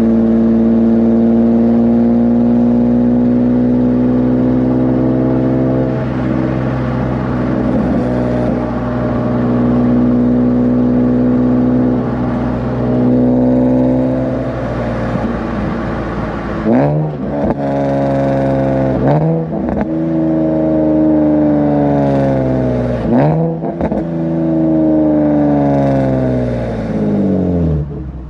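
Nissan 370Z's 3.7-litre V6 with PPE headers, heard from inside the car while driving: the engine pulls steadily with slowly rising revs, drops in pitch at a shift about six seconds in, and climbs again. In the second half the revs jump up and fall back several times, then fall away steadily near the end as the car slows.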